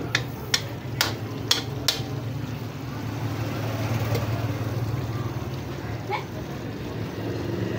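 Pot of ginataang langka (jackfruit in coconut milk) simmering on the stove, with a steady low rumble under it. Five sharp clicks in the first two seconds, and two fainter ones later, like a spoon knocking the pot.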